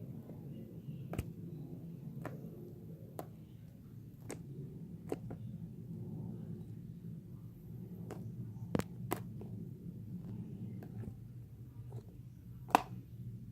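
Fluffy shaving-cream slime being squeezed and stretched by hand, giving a dozen or so sharp little pops and clicks at irregular intervals, the loudest near the end, over a low steady hum.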